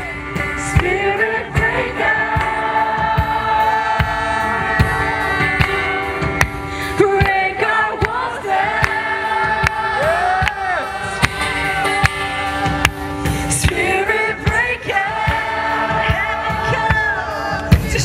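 Christian worship music: voices singing sustained lines over a band with a steady beat.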